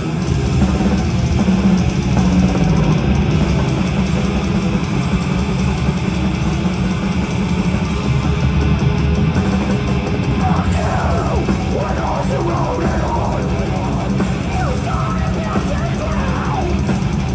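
Heavy metal band playing live at full volume: distorted guitars, bass and drums crashing in together at the start and pounding on without a break.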